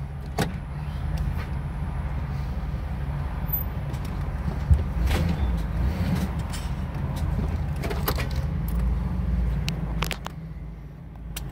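Ford 460 V8 engine of a 1990s Jayco Class C motorhome running under way, a steady low drone heard from inside the cab, with scattered rattles and knocks. It eases off briefly near the end.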